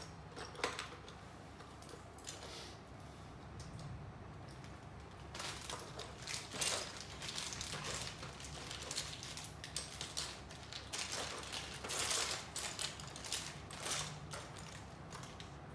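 Small plastic building bricks clicking and rattling as hands rummage through the pile and handle pieces, in irregular clusters of sharp clicks.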